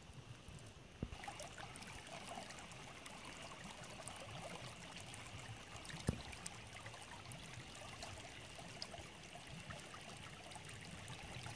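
Shallow creek water trickling over gravel, faint and steady, with a sharp knock about six seconds in and a smaller click about a second in.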